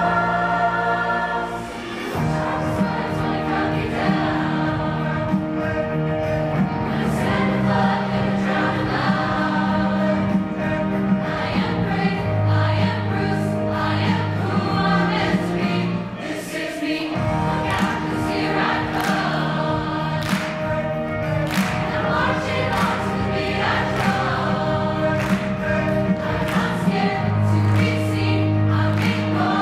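Large mixed choir singing a song together, with a solo singer's voice amplified through a microphone.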